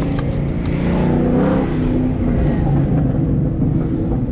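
Car engine accelerating as the car drives off. The revs rise about a second in, then ease back into a steady run.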